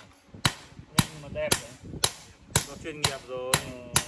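Hand hammer striking a red-hot steel knife blade on an anvil during hand forging, a steady rhythm of sharp blows at about two a second.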